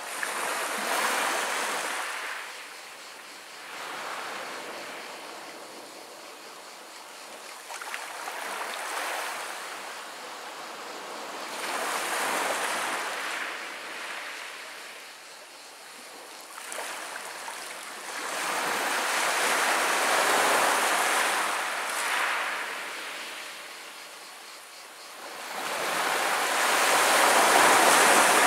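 Small waves breaking and washing over a pebble beach, swelling and fading every few seconds; the largest one breaks near the end.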